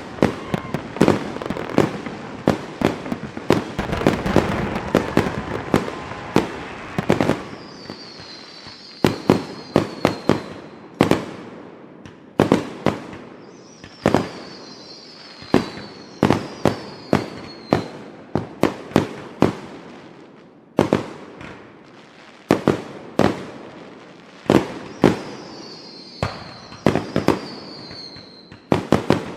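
Fireworks going off: a rapid string of sharp bangs and crackles at first, then spaced volleys of bangs. Three times a high whistle falls in pitch over a second or two.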